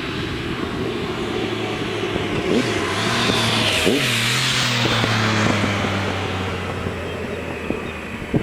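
Triumph Tiger 1050's three-cylinder engine, breathing through an aftermarket TOR muffler, passing by. It grows louder to a peak about four seconds in, dips slightly in pitch as it goes past, then fades away.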